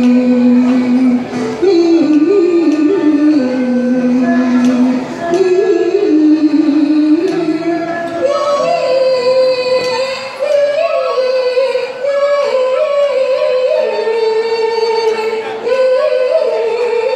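A woman singing a Kunqu opera aria in a sliding, ornamented voice with long held notes, accompanied by a Chinese traditional instrumental ensemble. The melody moves up to a higher register about halfway through.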